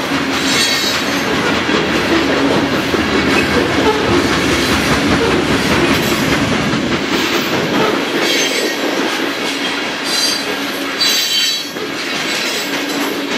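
Covered hopper cars of a freight train rolling past: a steady rumble of steel wheels on rail, with brief high-pitched wheel squeals several times. The low rumble thins out about eight seconds in as the last cars go by.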